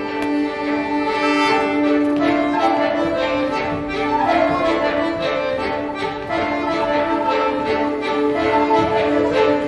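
Folk ensemble of violins, flutes, accordion, guitar and cellos playing the Bulgarian dance kopanitsa in 11/8 time, melody over a steady held low note. The rhythmic beat of the full group becomes clear about two seconds in.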